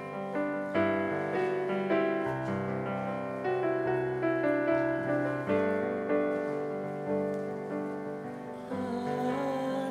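Piano chords playing a hymn introduction, a new chord struck about every second. Near the end a voice begins to sing.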